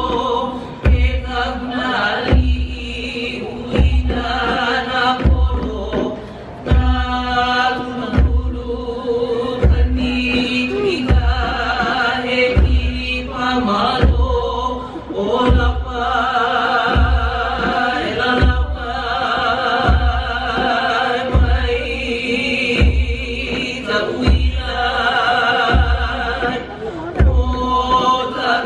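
Music with a steady heavy bass beat about once a second and a sung vocal line over it.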